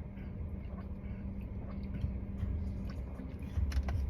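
Someone chewing crunchy roasted almonds with the mouth close to the microphone, a run of small irregular crunches that grows stronger near the end, over a low steady hum.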